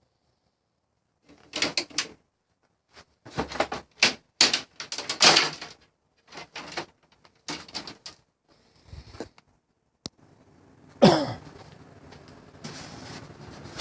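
Metal parts of an air conditioner being taken apart by hand: irregular clattering, knocking and scraping for several seconds, then a short loud sound that drops steeply in pitch, followed by a growing hiss.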